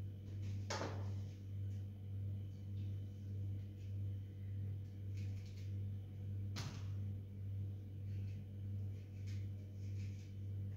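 A steady low hum that wavers in loudness about once a second, with two sharp knocks, one about a second in and one a little past halfway.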